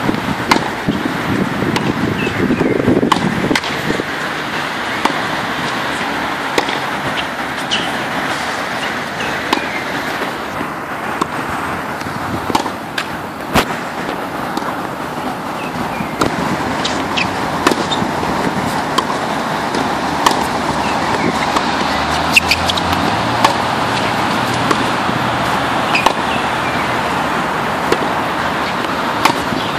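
Tennis balls struck by a racket on groundstrokes and bouncing on a hard court: sharp pops every second or two over a steady background rush of outdoor noise.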